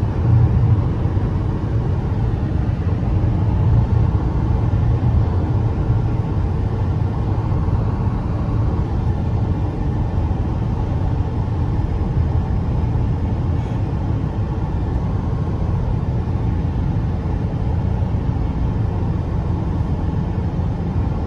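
Steady low rumble of road and tyre noise heard from inside a car's cabin while driving along a highway, holding an even level throughout.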